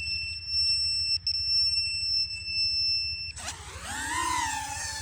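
A steady high-pitched whine, briefly broken about a second in, cuts off after about three seconds as the FPV quadcopter's electric motors spin up sharply for a hand launch: a whine that rises steeply in pitch and then settles into a steady hover pitch.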